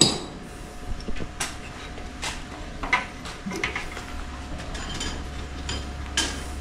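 Hammering on a building site: a few scattered knocks, the first the loudest, over a low steady rumble that grows louder in the second half.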